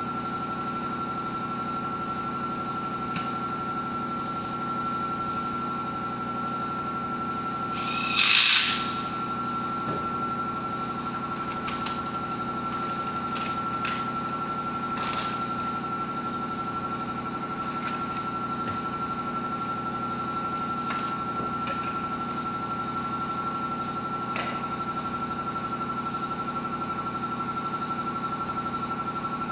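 A steady mechanical hum with a constant high whine runs throughout. About eight seconds in there is a short loud burst of noise, followed by scattered light clicks and rustles of bike parts and packaging being handled during assembly.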